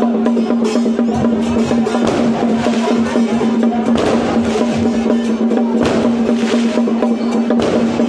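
Percussion-driven music: fast, dense drum and wood-block strokes over one steady held tone.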